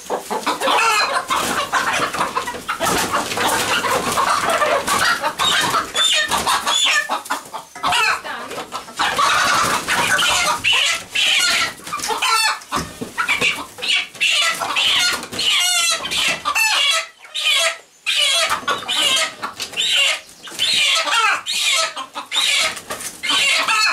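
Young chickens clucking and squawking loudly and almost without pause while they are caught and handled, with many short scuffling noises among the calls.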